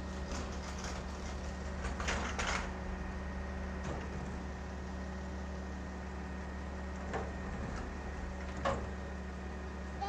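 Front-loader garbage truck's engine idling steadily, with a few clanks and rattles as a wheeled dumpster is rolled out to the truck, the loudest cluster about two seconds in.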